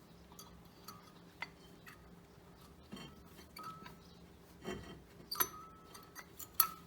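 Light metallic clicks and clinks as a brake-pad spring plate, bent out to sit tighter, is fitted back onto the brake caliper. There are scattered single clicks, the sharpest about five and a half and six and a half seconds in.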